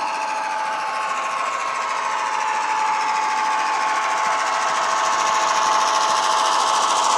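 Model Irish 141 class diesel locomotive's DCC sound decoder playing an EMD 567 diesel engine sound through a bass-enhanced onboard speaker, running steadily and growing louder as the model approaches and passes close by.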